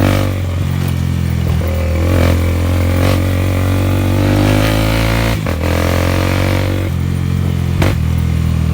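Honda Twister 250 motorcycle's single-cylinder engine running under way with a loud exhaust rumble, its note rising steadily as it pulls. Two sharp pops break in, about five seconds in and again near the end.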